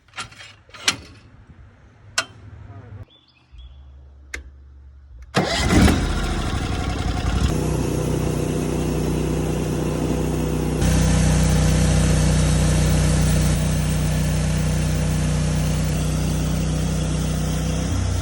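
A few sharp knocks and clicks, then a portable sawmill's gasoline engine starts about five seconds in and runs steadily. It speeds up in two steps, a couple of seconds apart.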